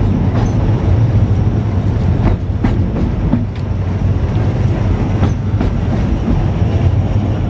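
Great Orme Tramway's cable-hauled tramcar running on its rails: a steady low rumble with irregular clicks and knocks from the wheels on the track.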